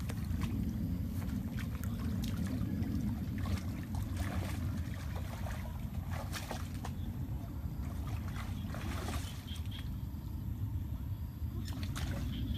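Water sloshing and trickling, with several short splashes, over a steady low rumble.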